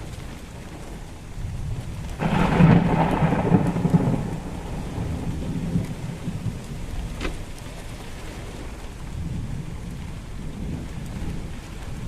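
Thunderstorm: a loud crack of thunder about two seconds in that fades into a low rumble, over steady rain.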